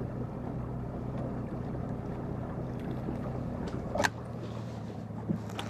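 Boat motor running with a steady low hum, over light wind and water noise. A single sharp knock about four seconds in.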